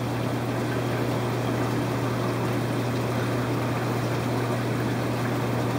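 Steady hum and even hiss of running aquarium equipment: pumps and moving water in a fishroom full of tanks.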